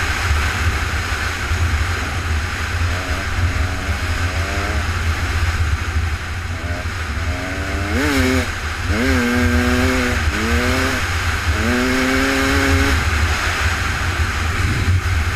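Offroad vehicle engine revving in a series of short pulls, each rising in pitch and dropping back, over a steady low rumble.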